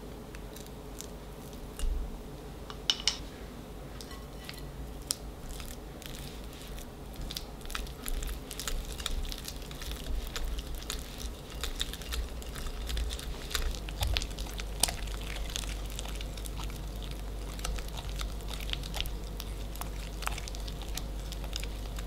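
Soft butter dropping into a glass mixing bowl with a dull thud about two seconds in, then a wire whisk creaming the butter, its wires clicking and scraping irregularly against the glass.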